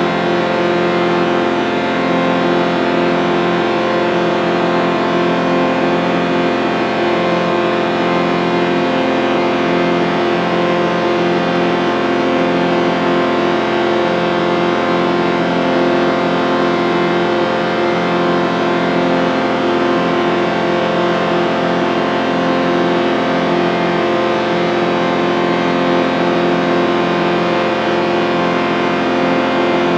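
A chorded sound effect: many tones sounding together as one sustained chord, held steady without change.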